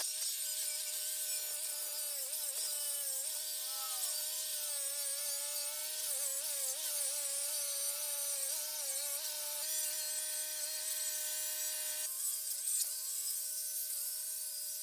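Power saw cutting concrete: a steady gritty hiss with the motor's whine underneath, its pitch wavering and dipping as the blade bites, then steadier near the end.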